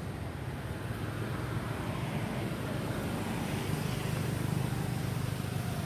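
Low, steady rumble of a vehicle engine, growing slightly louder over the seconds.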